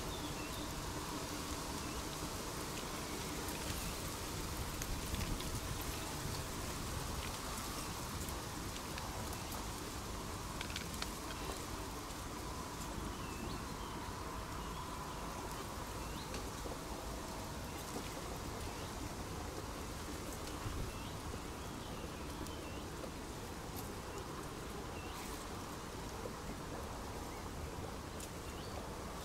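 Steady outdoor noise with many scattered light ticks, and faint high chirps of small birds coming in through the second half.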